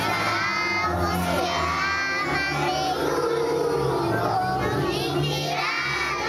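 A large group of young schoolchildren singing together.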